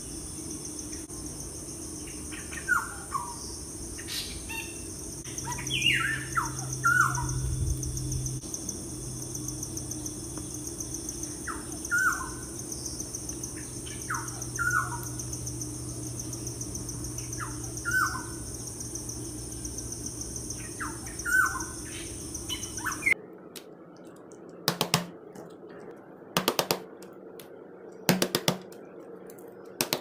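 Birds chirping: short falling chirps, often in twos or threes, every few seconds over a steady high hiss. About two-thirds of the way in the background cuts to a quieter one with sharp clicks every second or so.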